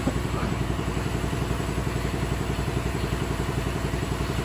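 A motor running steadily in the background with a fast, even low pulse.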